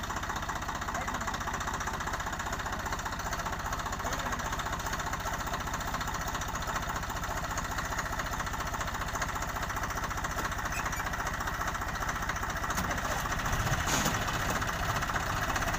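Three-cylinder diesel tractor engine running steadily with a rapid, even knock, getting a little louder near the end.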